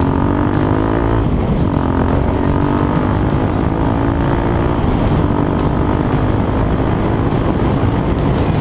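Irbis Z1 250's single-cylinder engine pulling hard. Its pitch climbs, drops about a second in as it shifts up, then climbs again for a few seconds before levelling off. Wind rushes over the on-board microphone.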